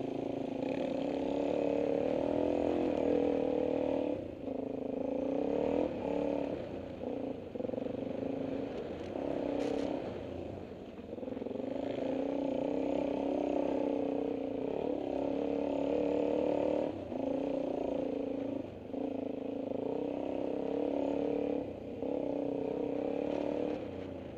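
Dirt bike engine heard from on board while riding a trail, revving up and down under the throttle. The engine note drops off briefly about half a dozen times as the throttle is closed and reopened.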